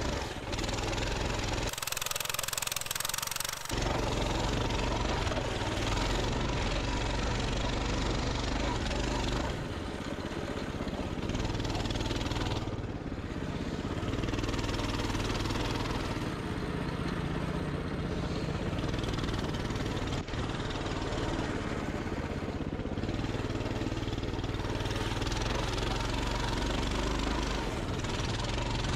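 Pit bike's small engine running under throttle, rising and easing off several times. About two seconds in, the engine sound briefly drops out under a hiss.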